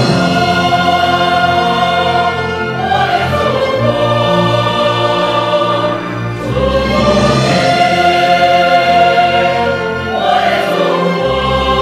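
Large mixed choir singing with a symphony orchestra in sustained, full chords. The phrases swell and ease about every three to four seconds.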